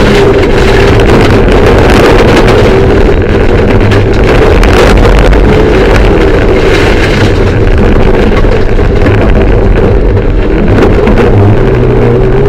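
Mitsubishi Lancer Evolution III's turbocharged four-cylinder engine running hard under load, heard loud inside the cabin at a fairly steady pitch, with road and tyre noise underneath.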